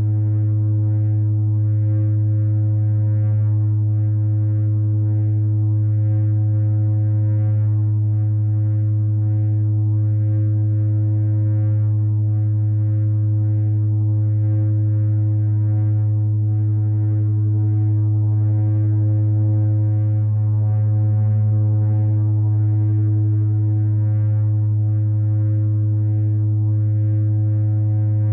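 No-input mixer feedback: a loud, steady low drone holding one pitch, with several fainter steady tones stacked above it and a faint fluttering hiss on top. The higher tones waver briefly about two-thirds of the way through.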